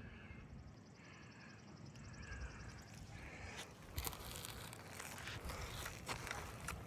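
Faint, irregular crackling, scraping and clicking of hand work on a roof shingle. It starts about four seconds in, after a quiet stretch.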